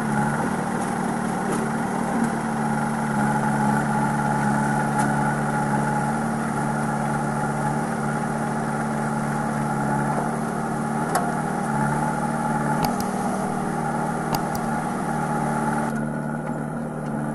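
Diesel engines of a JCB 3DX backhoe loader and a Swaraj 744 XT tractor running steadily side by side, a constant engine hum with no revving. A few short clicks come about two-thirds of the way in.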